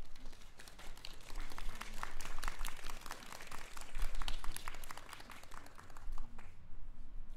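Small audience applauding, a patter of hand claps that swells about half a second in and dies away near the end.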